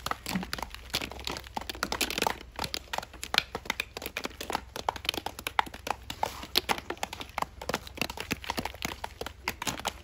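Many irregular knocks and cracks of wooden sticks beating walnuts in their green husks, several strikes a second from more than one person. The husks that will not come off by hand are being loosened.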